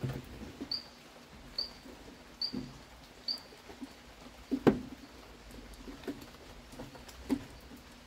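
Hands working a washing machine's suspension rod into its corner mount: soft clicks and knocks of plastic and metal, with one sharp click a little past halfway. A short high chirp repeats about once a second through the first three seconds or so.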